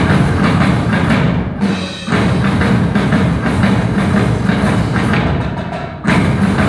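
Live rock band with drums and keyboards, heard from the audience in a concert hall. The music thins and dips twice, about one and a half seconds in and near the end, each time coming back abruptly at full level.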